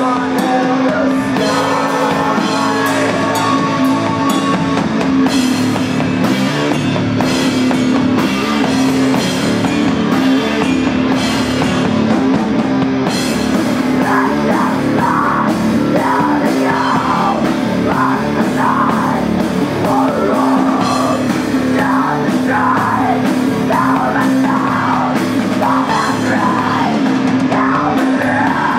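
Live band playing heavy rock: drum kit and bass guitar over a steady droning note, with a woman's voice singing from about halfway through.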